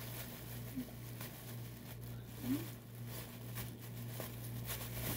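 Thin plastic shopping bag rustling faintly, with a few soft crinkles as hands dig through it, over a steady low hum.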